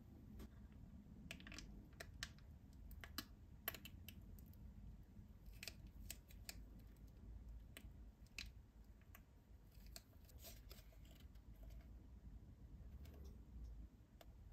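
Faint crinkling and crackling of a small plastic foil sachet being handled and squeezed, in scattered sharp clicks.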